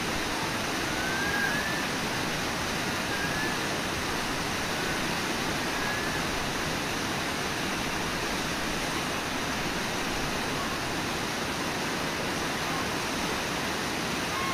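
Steady rush of Brooks Falls, river water pouring over the lip of the falls. A few faint short rising chirps sound in the first half.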